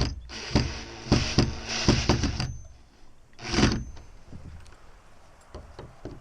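Drill with a Phillips bit driving a screw into wood in several short bursts, with one more burst about three and a half seconds in, then a few faint clicks.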